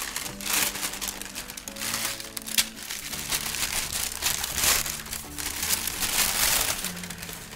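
Tissue paper rustling and crinkling in several short flurries as it is pulled apart and unfolded by hand, over soft background music.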